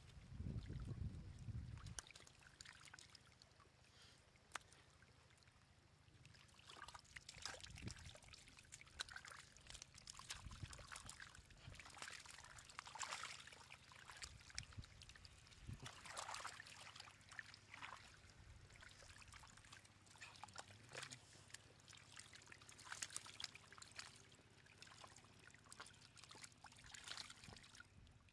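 Faint wet splashing and slapping of many fish thrashing in shallow muddy water, with trickling water, coming in irregular bursts. A low rumble sounds during the first two seconds.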